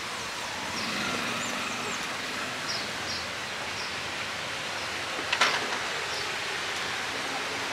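Outdoor street ambience: a steady wash of background noise with faint, short high chirps scattered through it, and one sharp knock about five seconds in.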